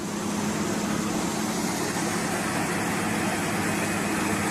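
A vehicle engine running steadily, a constant hum with no change in speed.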